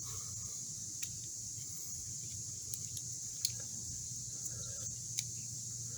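A few faint, sharp metal clicks as the stiff blades of a Leatherman-style multi-tool are worked open and closed, over a steady high cricket chirring and a low hum.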